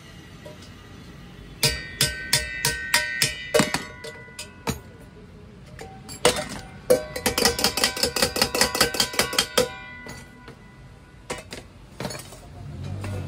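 Stainless steel pot clinking and ringing under repeated metal strikes. First comes a slower series of knocks, then a fast run of about eight strikes a second, then a few more near the end.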